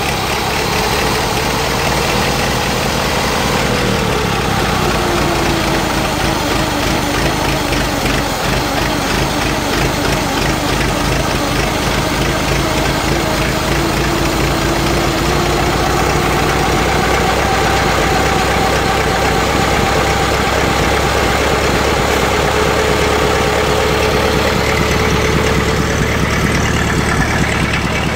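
Freshly rebuilt 1923 Ford Model T four-cylinder flathead engine idling on its first run after a full rebuild. Its pitch sags a little about four seconds in and climbs back toward the end.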